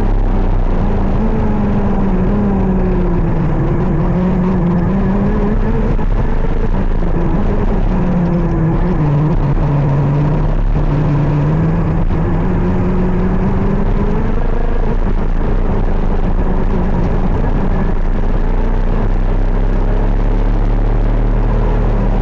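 KZ 125 shifter kart's single-cylinder two-stroke engine running at high revs, its pitch easing down and climbing back again smoothly, lowest around the middle.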